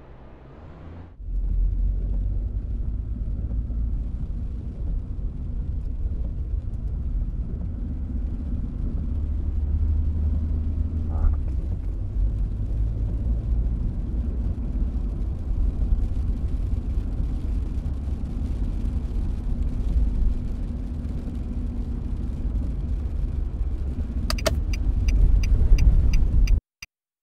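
Steady low rumble of a car driving along a road, as road and engine noise heard from inside. A short run of clicks comes near the end, and the sound then cuts off abruptly.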